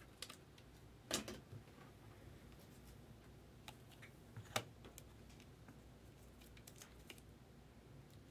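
Faint clicks and light taps of trading cards and a rigid plastic card holder being handled, with two sharper taps, one about a second in and one a little past the middle.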